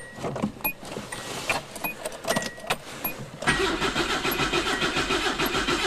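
Scattered clicks and knocks as the accelerator pedal is pumped. About three and a half seconds in, the old Datsun's starter begins cranking the cold engine, a steady, evenly repeating churn that does not catch.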